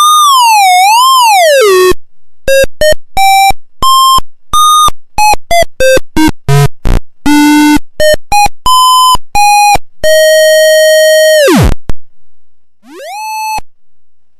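Buzzy square-wave tone from a 4046 CMOS chip's voltage-controlled oscillator, played by touching a probe along a resistive strip. It starts as a wobbling pitch glide, then breaks into a run of short separate notes with silences wherever the probe is lifted and the oscillator stops. A long held note then drops away, and a short rising note follows near the end.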